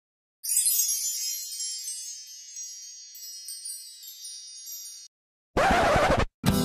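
Shimmering wind-chime sound: many bright, high ringing tones start together and slowly fade over about four and a half seconds. After a brief silence, a short loud burst of sound follows near the end.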